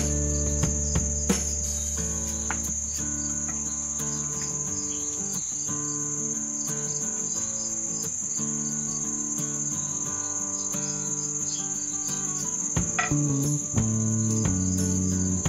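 Crickets chirping as one continuous high trill over soft background music, with a few light knife clicks as fruit is peeled and cut.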